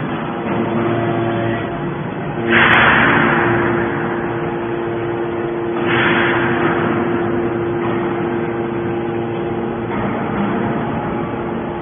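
Hydraulic scrap-metal baler running: a steady machine hum with noise, broken by two loud surges of rushing, crunching noise about two and a half and six seconds in, each fading away over a second or so.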